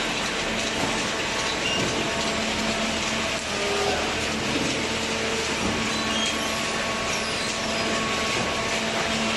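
Cardboard baler machine running: a steady mechanical noise with a constant low hum and scattered small clicks.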